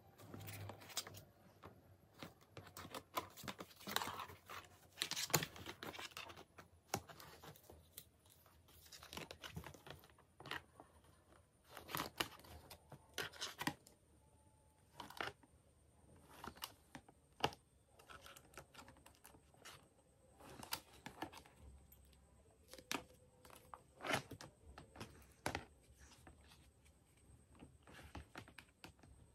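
Plastic rack parts being handled and fitted together: irregular clicks and knocks of the grey plastic shelf panels and blue plastic connectors, with some rustling of plastic.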